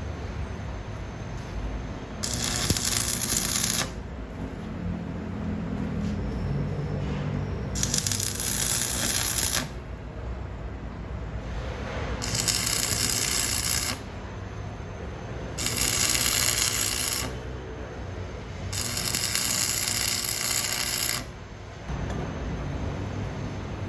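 Arc welding on cast iron in five short bursts of crackling hiss, each lasting one to two and a half seconds, with steady shop machine noise in the gaps; short runs like these are typical of building up chipped cast iron in stitches.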